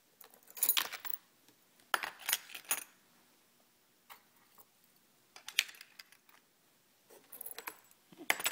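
Metal spinnerbait blades and wire arms clinking and rattling against a clear plastic tackle tray as the lures are set into its compartments, in four short bursts of clinks.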